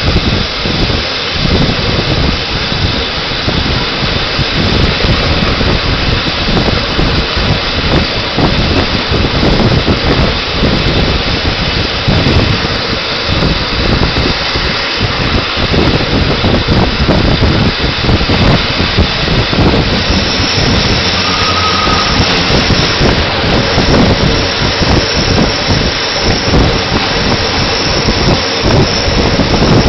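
Rhaetian Railway train running on the curve, heard from an open carriage window: a loud, steady rush of wind buffeting the microphone over the rumble of wheels on rails. A thin high whine comes in about two-thirds of the way through.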